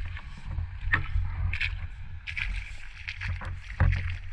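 Creek water lapping and gurgling against a GoPro's waterproof housing set at the waterline, heard through the housing as a steady low rumble with scattered sharp ticks and knocks, the strongest knock near the end.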